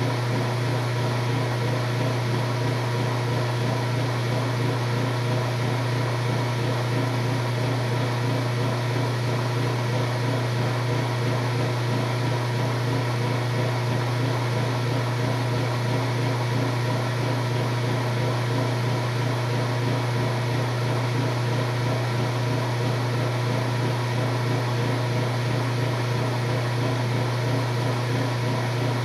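Washing machine giving off a steady low hum that holds the same pitch and level throughout, with no spin-up or slow-down.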